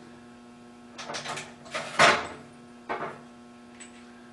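Metal shop hardware being rummaged and handled: a few separate clattering rattles, the loudest about two seconds in, over a steady low hum.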